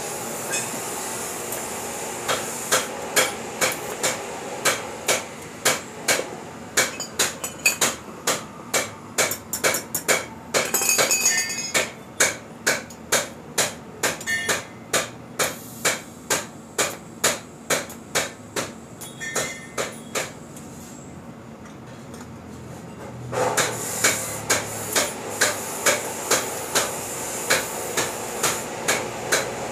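TIG welding on a motorcycle exhaust header pipe: the arc ticks in a steady beat of about two pulses a second over a hiss, fixing the hanger mount to the pipe. The ticking stops briefly a little after twenty seconds and then resumes.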